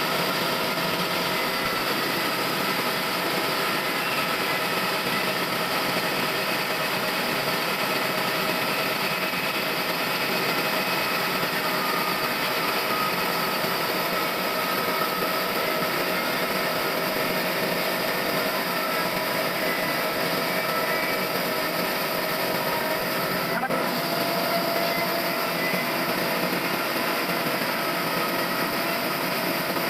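Sawmill machinery running steadily: a dense, even mechanical noise with several steady tones through it.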